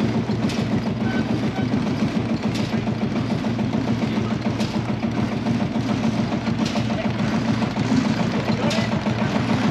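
Heavy engine idling steadily, with a light tick about every two seconds.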